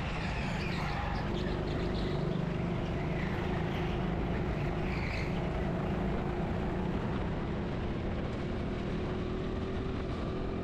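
Go-kart running steadily at race speed, a continuous motor drone with a few brief higher squeals in the first half.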